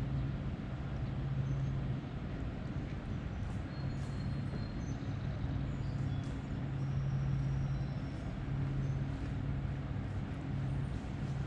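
A steady low engine hum, like distant vehicle traffic, that fades a little and comes back. A few faint, high bird chirps sound over it.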